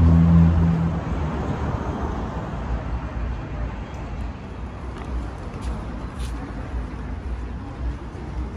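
Street traffic: a motor vehicle's engine hum, loudest in the first second and then fading away, followed by steady road traffic noise.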